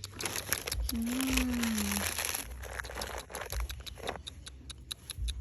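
Crinkling and crunching handling noise with many rapid clicks, densest over the first two seconds and thinning to scattered ticks after. About a second in there is one short call with a falling pitch.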